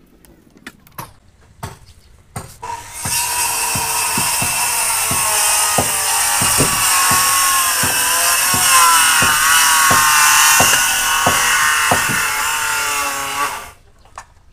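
Handheld electric circular saw cutting through a thick timber plank: a few clicks, then the saw starts about three seconds in and runs loud for about ten seconds, its pitch wavering under load, with a regular tick about twice a second, before cutting off shortly before the end.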